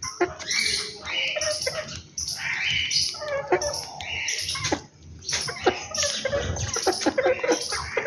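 A flock of house sparrows chirping busily, in bursts of overlapping chatter with short pauses between them.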